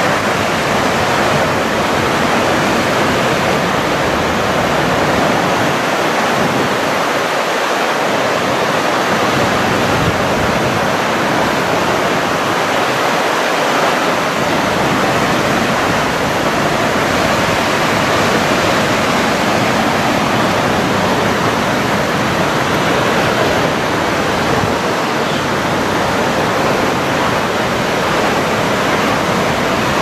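Loud, steady rush of a waterfall, Vernal Fall on the Merced River.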